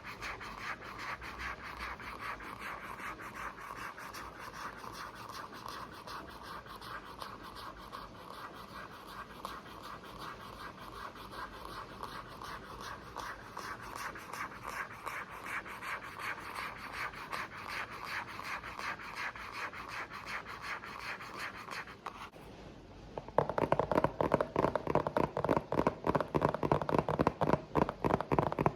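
Rapid, dense scratching and tapping on a hard object close to the microphone. About 22 s in it stops briefly, then switches to louder, lower-pitched fast scratching and tapping on a different surface.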